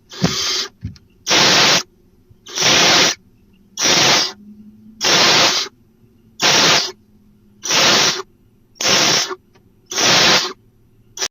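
Barn owl giving a run of harsh hissing calls, about ten of them, each about half a second long and roughly a second apart, with a few sharp clicks near the start.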